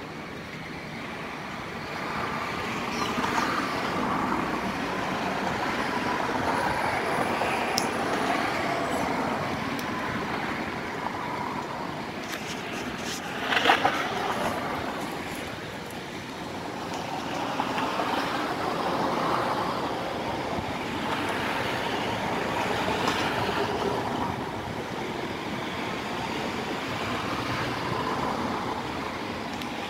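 Road traffic going by, cars swelling and fading one after another, with a short sharp noise about fourteen seconds in.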